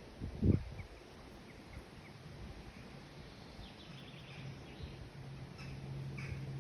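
Outdoor ambience: faint bird chirps over a steady low hum, with a single dull thump about half a second in.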